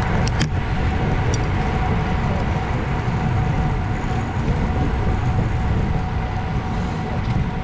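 Wind rushing over the microphone of a camera on a moving road bike, with tyre noise on the asphalt. A few short clicks in the first second and a half.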